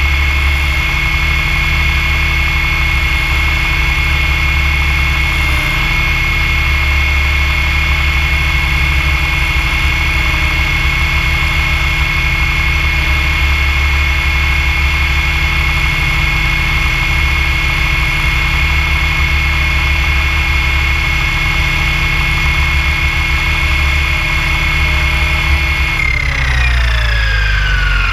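Goblin 570 electric RC helicopter heard from on board in flight: a steady high whine from the motor and drivetrain over the rotor noise. In the last two seconds the pitch falls away as the rotor spools down after landing.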